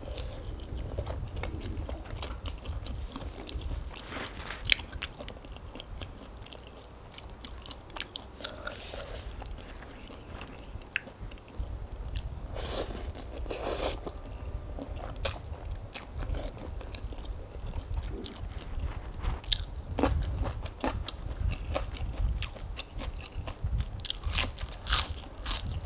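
Close-miked eating: chewing and biting raw sweet shrimp and soft rice noodles, with a longer slurp about halfway through as a mouthful of noodles goes in. Near the end, crisp lettuce crunches several times.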